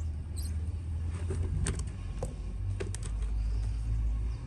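A steady low rumble with a few faint, scattered taps, like knife and squash pieces on a wooden cutting board.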